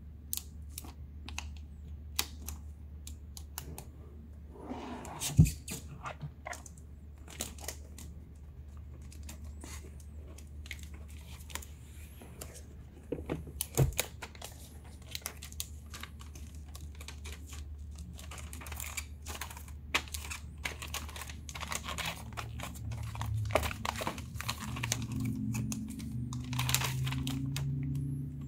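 A new Asus ROG Zephyrus G14 laptop in its clear plastic wrap being handled: crinkling and rustling of the plastic film with many scattered clicks and taps, and two sharper knocks about five and fourteen seconds in. A low hum grows louder in the last few seconds.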